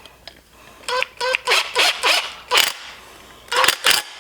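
A series of short, sharp squeaks, about six in quick succession and then two more near the end: metal parts of a bolted footrest bracket squeaking as they are tightened down with an Allen key.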